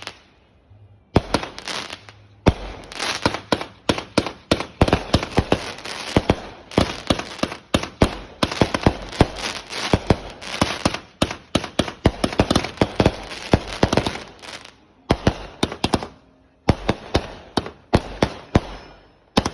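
Fireworks going off: a rapid, irregular run of sharp bangs and crackling pops, with a few brief pauses near the start and again after about fifteen seconds.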